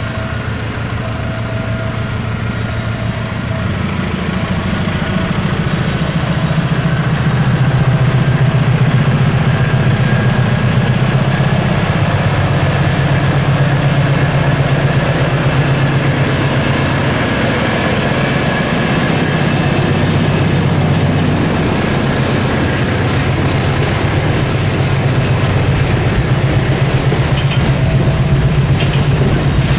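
GE CM20EMP (CC 206) diesel-electric locomotive hauling a container freight train past at speed, its engine a steady low drone that grows louder as it approaches. Near the end the wagons roll by with a clatter of wheels over rail joints.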